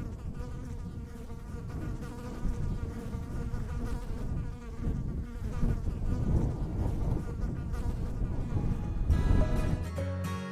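Bees buzzing in flight, a steady, wavering drone. About nine seconds in, a short chiming music jingle starts over it.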